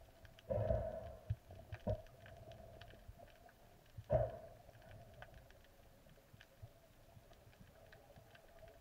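Underwater handling noise through a camera's waterproof housing: a faint steady hum with scattered small clicks, and three muffled knocks, the first about half a second in and the longest, the others near two and four seconds in.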